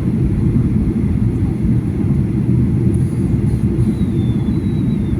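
Airliner cabin noise: the steady low rumble of the engines and airflow heard from inside the passenger cabin, with a faint high whine drifting slightly lower near the end.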